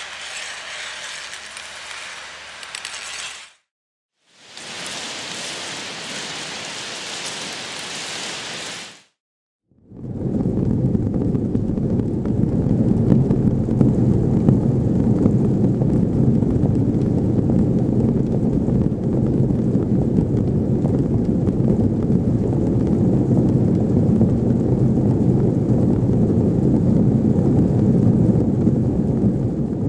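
Motor-driven kinetic sound installation. First a few seconds of bright, dense rattling as small rings hanging on wires are whipped against a hard plate, then after a short break another bright hissing rattle. From about ten seconds in comes a loud, steady, low drumming of many cotton balls on wires beating against cardboard boxes.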